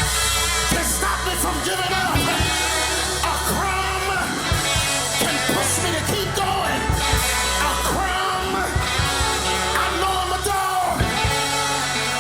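Live gospel band music with singing: a sustained bass line under voices and instruments.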